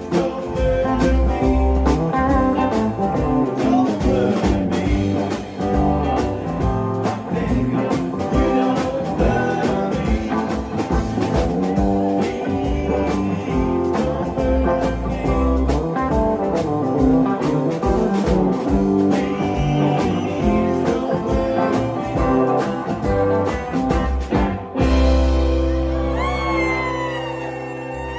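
Live band with electric guitars, keyboard and drums playing a rock song with singing, heard mostly through the stage monitors. About 25 seconds in the drumming stops and the band holds a final chord that rings on, a long low note under a bending high note.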